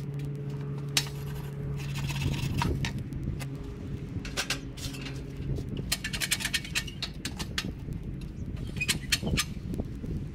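Scattered wooden knocks and clicks as a peeled walking stick is shifted in a portable workbench's wooden jaws and lifted out, with a quick run of clicks a little past halfway. Under it, a steady low hum stops about halfway through.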